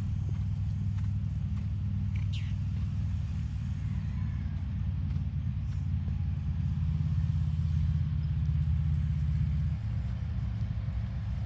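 An engine idling with a steady low rumble that swells for a few seconds past the middle, plus a short falling whistle about two seconds in.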